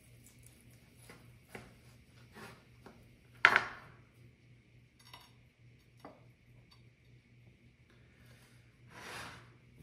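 Utensils and a plate clinking as pieces of roast lamb are put on a dish: scattered light taps, with one sharp ringing clink about three and a half seconds in, over a faint steady hum.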